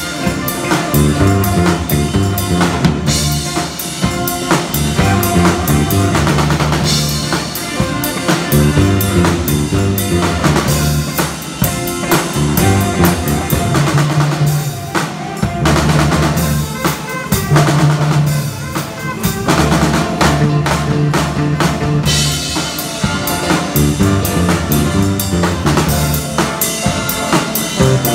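Live rock music from an electric bass guitar played through an amplifier and a drum kit: a bass line moving note by note under a steady beat of bass drum, snare and cymbals.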